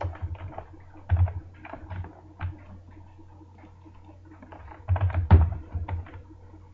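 Computer keyboard keystrokes in short bursts, with pauses between them and the busiest cluster about five seconds in, over a faint steady low hum.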